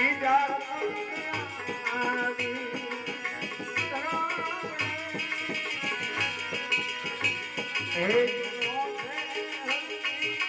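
Gujarati devotional bhajan music: tabla playing a steady rhythm under a wavering melody line.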